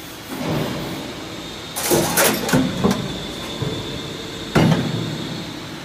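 Metal stamping press closing a frying-pot deep-drawing die. The ram comes down with a rising rush, then several clanks and knocks come about two seconds in and one sharp heavy clank comes near the end, over a steady high machine whine.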